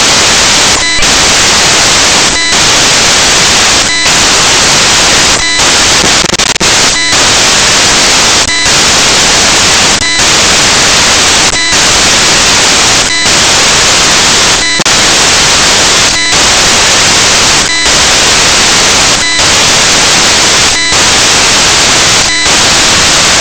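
Loud, steady static hiss like white noise, broken by brief regular dropouts about every one and a half seconds.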